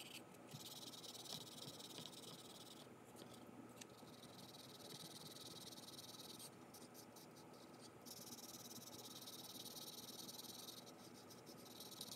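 Faint scratching of a wax crayon rubbed over paper in stretches of quick colouring strokes, with short pauses about three seconds in and again around seven seconds.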